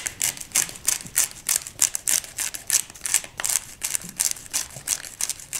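Hand-turned pepper mill grinding peppercorns: a steady run of short crunching clicks, about three or four a second, as the grinder is twisted back and forth.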